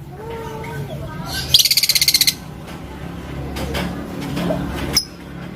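Lovebird giving a rapid, high-pitched chattering trill, the fighter's "ngekek" call, starting about a second and a half in and lasting under a second, with one sharp chirp near the end.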